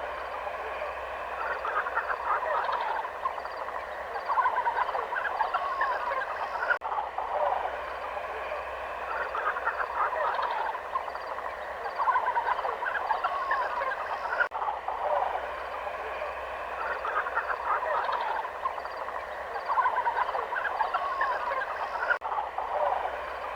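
Many animals calling at once in a dense, chattering chorus of short overlapping calls, broken by abrupt cuts about every seven to eight seconds.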